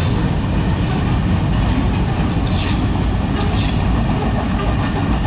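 Container freight train's wagons rolling past with a steady, heavy low rumble. The wheels squeal briefly twice about halfway through.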